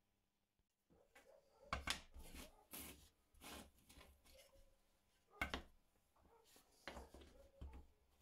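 Irregular knocks, clatters and light scrapes of wooden pieces being handled and set down on a work surface, starting about a second in, with the sharpest knocks near two seconds and five and a half seconds in.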